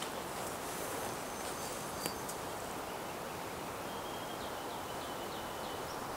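Steady outdoor background hiss, with a faint, high, thin bird call repeating a few times from about four seconds in.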